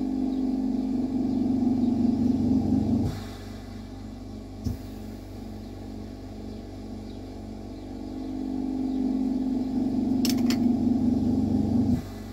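A low mechanical hum swells over a few seconds and cuts off abruptly, twice, over a steadier background drone. A brief hiss follows the first cutoff, and there is a single click a little later.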